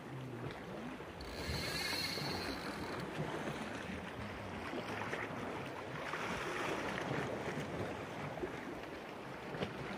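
Surf washing against shore rocks, with wind on the microphone; a brief higher hiss about a second and a half in.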